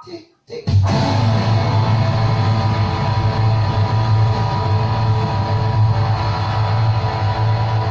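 Guitar music: a couple of short plucked notes, then from under a second in a loud, held guitar chord with a steady low drone under it.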